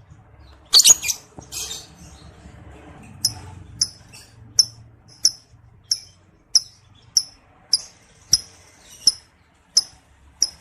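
Lovebird calls. Two harsh, scratchy chattering bursts come about a second in. From about three seconds in, short, sharp, high-pitched chirps repeat evenly, roughly one every two-thirds of a second.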